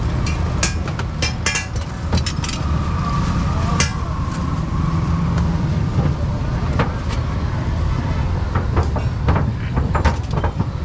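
A metal spatula clinks and scrapes on a large flat steel griddle, in quick strikes during the first few seconds and a few more near the end, over a steady low rumble.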